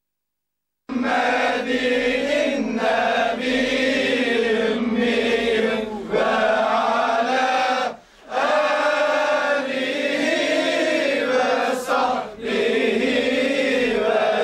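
A group of men chanting a devotional chant together in unison, phrase after phrase. The voices come in about a second in, after a short silence, and break briefly for breath about eight seconds in.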